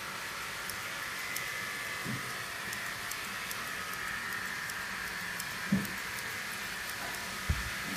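Grooming scissors snipping through a dog's coat in faint, irregular little clicks, over a steady mechanical hum, with a few soft low thumps.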